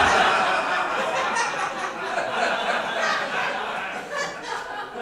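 Audience laughing, loudest at the start and gradually dying down.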